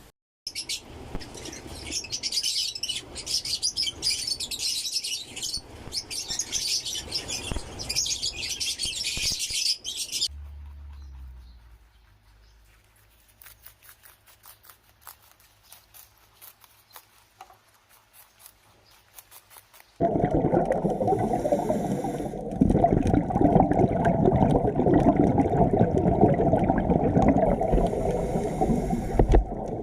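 Dense, high-pitched chirping from many birds for about ten seconds. It stops abruptly and gives way to a quiet stretch of low hum with faint ticks. About twenty seconds in, a loud, dense low rumbling noise starts suddenly and runs on.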